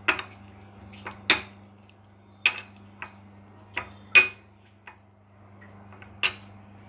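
A steel spoon clinking and scraping against a ceramic plate while mixing a moist spice stuffing. The strokes come irregularly, about one a second, the loudest about four seconds in. A steady low hum runs underneath.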